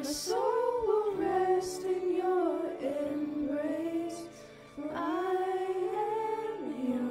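Girls' voices singing together into microphones, in two long held phrases with a short pause for breath about four and a half seconds in.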